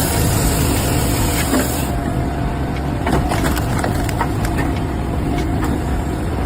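Loud machinery noise: a steady low rumble with scattered knocks and clicks over it.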